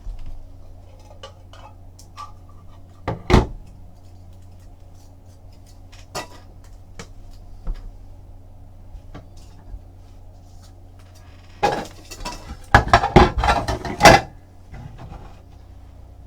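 Trading cards and their box being handled and unpacked: scattered light taps and clicks, a sharp knock about three seconds in, and a burst of clattering and rustling near the end.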